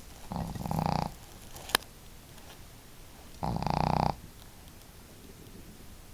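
A sleeping pet dog snoring: two long snores, about three seconds apart. A single sharp click comes between them.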